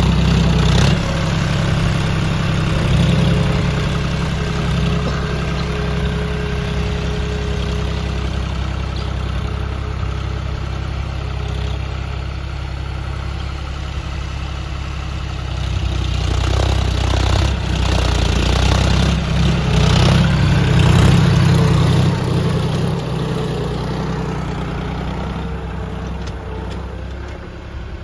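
Diesel engine of a John Deere utility tractor running steadily as it pulls a tine cultivator through tilled soil. It grows louder as the tractor passes close about two-thirds of the way through, then fades as it drives away.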